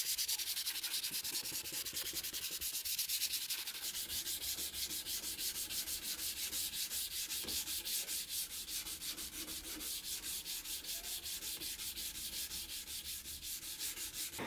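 Sandpaper rubbed by hand along a steel knife blade in quick, even back-and-forth strokes, sanding the rust off the old blade.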